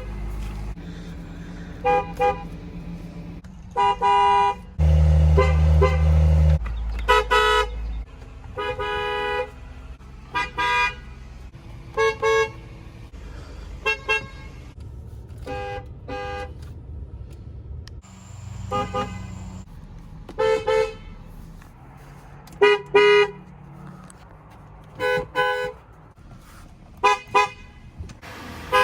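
Car horns of a string of different cars honked one after another, each with its own pitch. Mostly short single or double toots, with a few longer blasts of a second or more.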